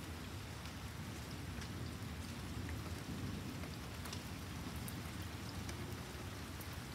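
Steady rain falling in a thunderstorm, with scattered drops ticking close by and a low rumble of distant thunder underneath.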